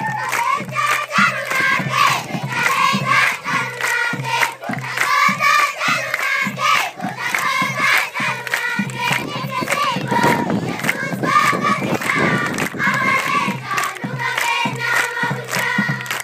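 Large group of children singing together in unison, clapping their hands in time at about two claps a second, with a rougher, more shouted stretch around the middle.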